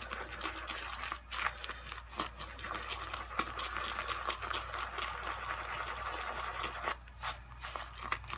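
Shave brush whisking tallow soap lather in a bowl: a steady wet swishing with many small ticks of the bristles against the bowl, as freshly added water is worked into the lather.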